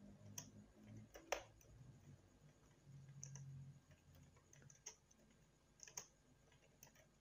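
Faint computer keyboard typing: scattered key clicks, the loudest about a second in.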